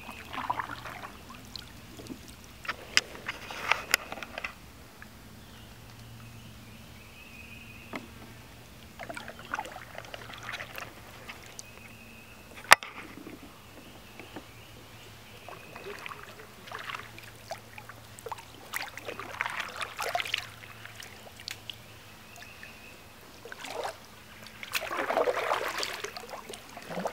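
Kayak paddle blades dipping and splashing in the water, in runs of strokes every few seconds, with a single sharp click about halfway through.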